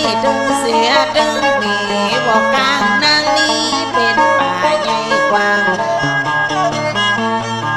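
Instrumental interlude of northern Thai sor music: a plucked lute and a bowed fiddle play an ornamented melody over a held low note, with no singing.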